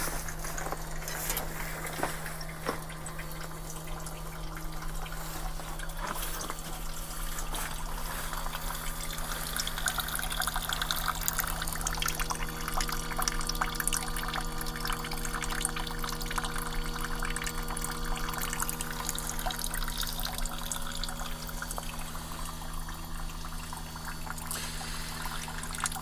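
Defrost meltwater from a mini-split heat pump's outdoor unit trickling down a plastic drain chute into a bucket, over a steady hum from the unit; the draining water is the sign of the unit's defrost cycle clearing its coil.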